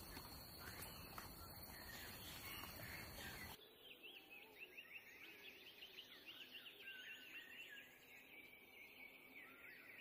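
Faint outdoor ambience with a steady high-pitched whine, which changes suddenly about three and a half seconds in to many small birds chirping and warbling in quick, wavering calls.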